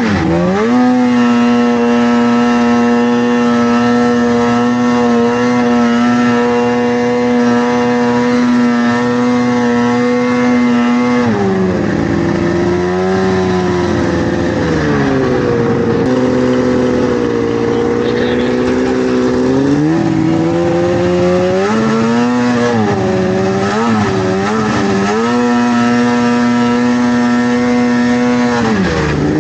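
Vintage snowmobile's two-stroke engine running at steady high revs, easing off about eleven seconds in, then climbing back with a few quick rises and falls before holding steady again and dropping off near the end.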